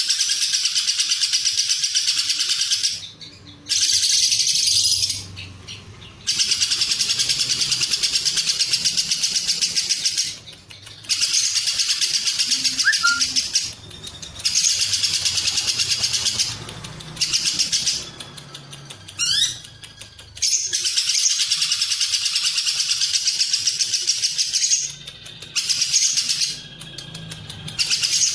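Lovebird singing 'ngekek': long, loud, rapid chattering trills lasting several seconds each, broken by short pauses.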